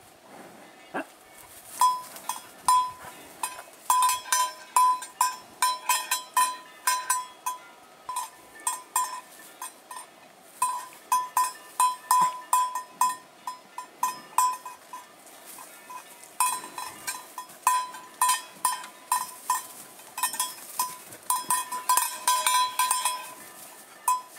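Pembroke Welsh corgi barking over and over in quick runs of short, high barks, several a second, with brief pauses between runs.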